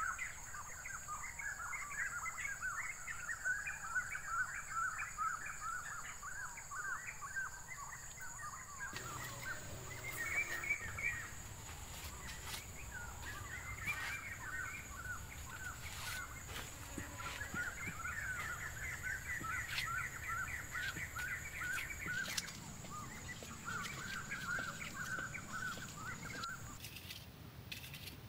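Small birds chirping and trilling almost without a break, over a steady high-pitched whine that stops near the end. Faint scrapes and dabs of wet mud being spread and smoothed by hand.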